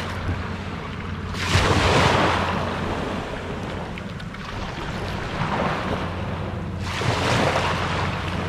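Small surf waves washing onto the beach at the water's edge, swelling twice, about a second and a half in and again about seven seconds in, over a steady low rumble of wind on the microphone.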